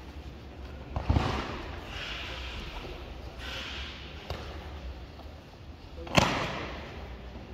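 Two loud thuds about five seconds apart as an aikido partner breakfalls onto foam tatami mats, the body and slapping arm striking the mat, each thud echoing in a large hall. Softer rustling of hakama and feet on the mat between them.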